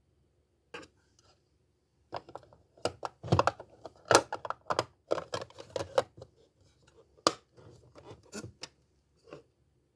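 Small stationery items being handled: a quick run of clicks, taps and scratching, with a couple of sharp clicks near the end.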